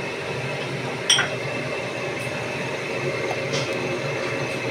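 Whole spices (bay leaf, cardamom, cinnamon) sizzling in hot ghee in a metal kadai, a steady hiss, with one sharp metallic clink about a second in.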